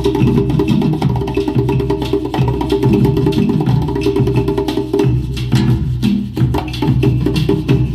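Percussive music with heavy bass playing loud through an upgraded car audio system of Blaupunkt 6.5-inch coaxial speakers, two-way component speakers and a Blaupunkt 8-inch active subwoofer, heard inside the car's cabin.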